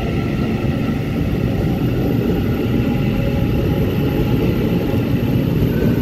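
Taiwan Railway EMU900 electric multiple unit running along the platform: a steady rumble of wheels on rail with a faint, steady electric whine above it.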